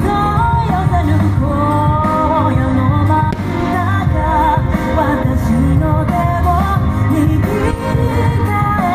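Pop song with a singing voice, the sung melody wavering with vibrato over a full, continuous backing.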